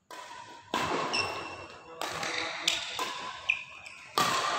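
Badminton rally: rackets smack the shuttlecock in a string of sharp hits about every half second to second, each ringing on in the echo of a large hall.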